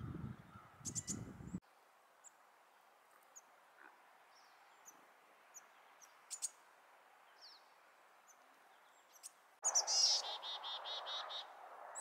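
Chickadees calling: scattered faint, high, short chips and notes, then near the end a louder, quick run of evenly repeated 'dee' notes over a background hiss. A brief low rumble opens the stretch.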